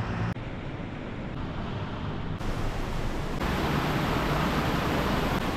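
Rain falling: a steady hiss that becomes fuller and louder about three and a half seconds in.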